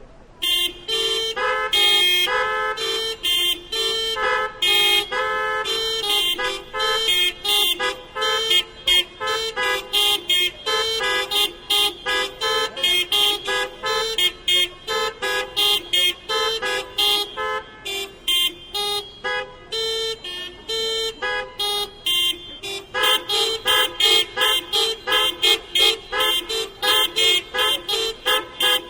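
Many car horns sounding short honks and hoots in an interlocking rhythm, the different horns' pitches alternating to make a quick, steady pulse. It starts suddenly, and about three-quarters of the way in the texture thickens as more horns sound together.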